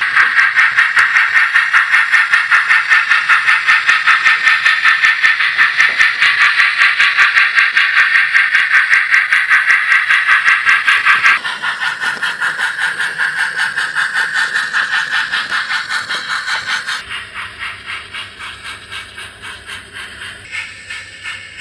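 Steam-locomotive chuffing from an On30 model logging locomotive, a steady beat of about four chuffs a second with a hissing edge. It drops in level about eleven seconds in and again a little after seventeen seconds.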